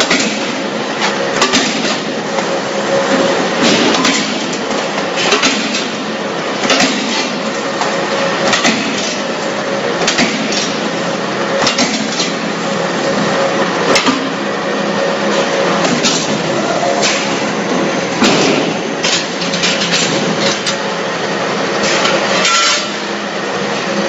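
YBJ 100 CNC plate punching machine working through a metal plate, a sharp punch stroke every second or two over the steady hum of its motor.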